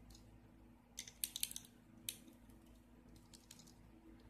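A few faint sharp clicks of handling over a low steady hum: a cluster about a second in and one more near two seconds.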